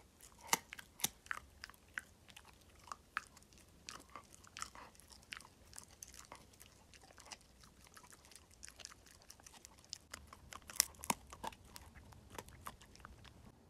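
A Shiba Inu gnawing a knotted dog chew bone: a run of irregular crunching clicks, with a few louder cracks.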